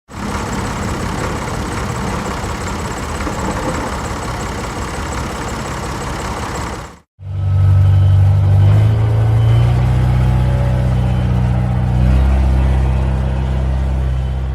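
Tractor engines running, in two spliced recordings. The first is a dense, noisy engine sound for about seven seconds and cuts off abruptly. After a moment's silence the second is a deep, steady engine drone that shifts in engine speed twice.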